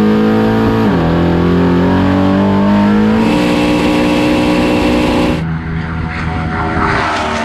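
1969 'Big Red' Camaro's big-block V8 at full throttle on a standing-mile run. Its pitch climbs, drops once at an upshift about a second in, then climbs again. The sound changes abruptly twice, about three and five seconds in, ending more distant.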